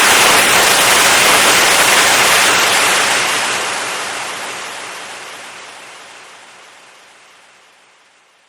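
Compressed air hissing out in a loud, steady rush that fades away slowly over the last five seconds or so.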